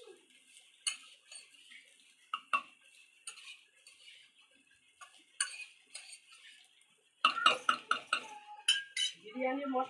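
A metal spatula scraping and tapping against a black kadai as cooked chicken and rice are layered and turned for biryani. There are scattered light clicks at first, then a run of louder clatters about seven seconds in.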